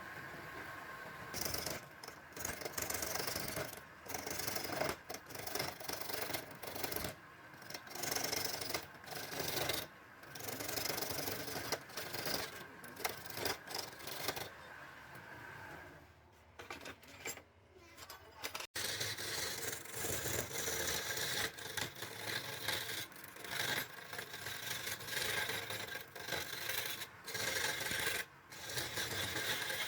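Wood lathe running while a turning tool cuts into the spinning wood, scraping in repeated short passes that start and stop every second or two.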